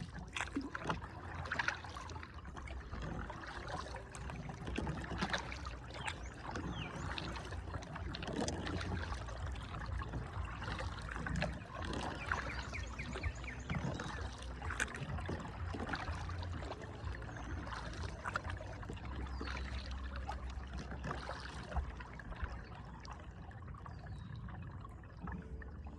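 Water splashing and trickling around a kayak being paddled on a river: a steady run of small, irregular splashes and drips, with a low rumble underneath.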